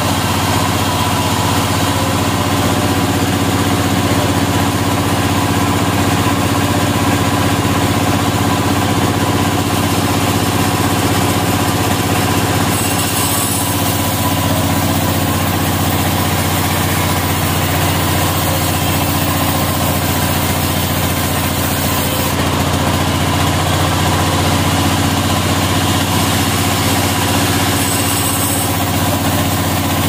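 Sawmill saw's motor running at a steady pitch, an even hum with no rise or fall.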